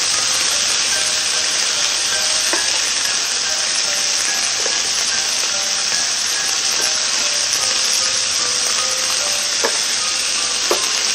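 T-bone steak and yellow bell pepper strips sizzling steadily on an open electric contact grill. Metal tongs click against the grill plate a few times, mostly near the end, as the peppers are turned.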